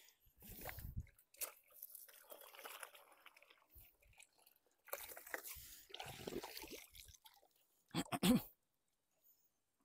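A wet mesh shrimp trap being hauled up and shaken out, with water sloshing and trickling off the netting as it rustles. Two short, sharp knocks near the end are the loudest sounds.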